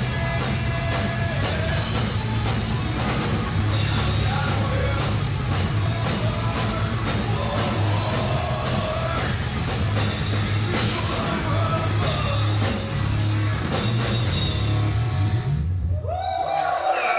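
Live alternative-metal band playing: heavy bass, distorted guitars and a drum kit with steady cymbal strokes. The song stops about a second before the end, and the crowd starts to cheer and whistle.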